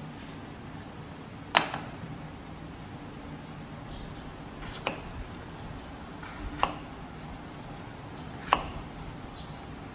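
Kitchen knife slicing through small round green eggplants and knocking on a wooden chopping board: four sharp knocks one to three seconds apart, the first the loudest, over a steady low hum.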